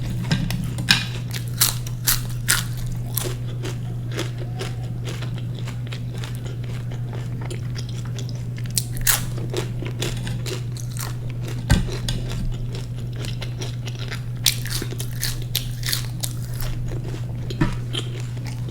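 Close-miked eating: crunchy bites and chewing of fried snack food, with sharp crackly clicks scattered through, over a steady low hum.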